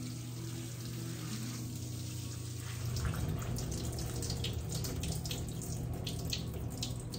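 Water running from a grooming-tub hose sprayer and splashing off a wet puppy into a stainless steel tub as the shampoo is rinsed out, over a low steady hum. About three seconds in the water grows louder and more splashy.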